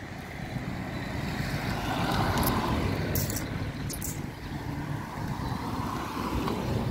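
A car driving past on the road, its tyre and engine noise swelling as it comes close. A few sharp clicks sound in the middle.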